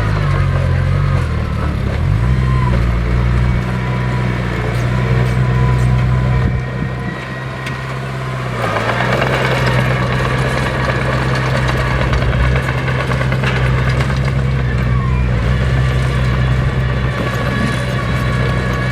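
Heavy diesel earthmoving machinery, a bulldozer or dump truck at work, running steadily with a deep engine note. The engine drops back a little about seven seconds in, then picks up again with a rougher, noisier sound from about nine seconds on.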